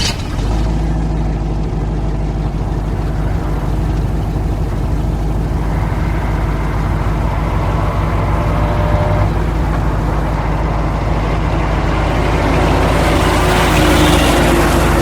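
Heavy racing-truck engine running steadily with a deep, even drone, with a rush of higher-pitched noise growing louder near the end.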